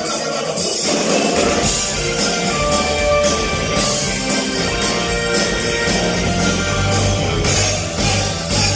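Live funk band playing with a steady drum-kit beat, electric bass and keyboards, recorded from the crowd.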